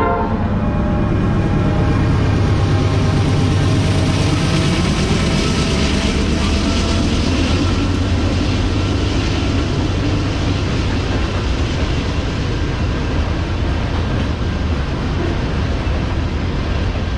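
Norfolk Southern diesel locomotives and an autorack freight train passing close by: a steady, loud rumble of engines and rolling railcars. A train horn note trails off in the first second.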